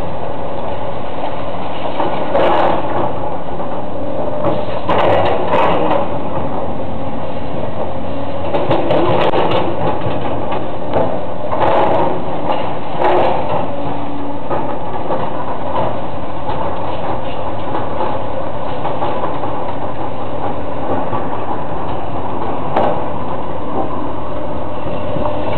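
Heavy demolition machinery's engine running steadily, with scattered knocks and crashes of debris, a few in quick clusters and one near the end.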